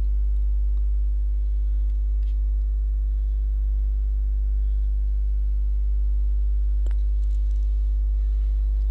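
Steady low electrical mains hum with a few faint steady tones above it, unchanging throughout; a faint click about seven seconds in.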